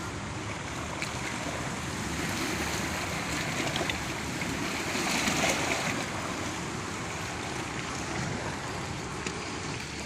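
Lake waves breaking, a steady rush of water that swells a little about halfway through.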